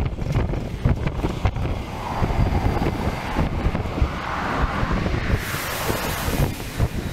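Wind buffeting the microphone on a moving sightseeing bus, over the low rumble of the bus and traffic. A brief burst of hiss comes about five seconds in.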